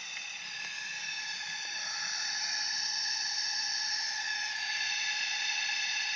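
Homemade foundry furnace running at full heat: a steady hiss with several high whining tones over it, which shift slightly about four seconds in.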